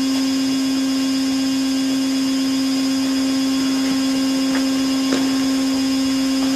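Five-axis CNC machining center running with a steady low hum and a fainter high whine above it, with a few faint ticks in the second half.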